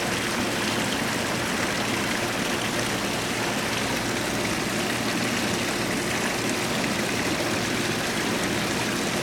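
Steady rush of running water at a koi pond, with a faint low hum underneath.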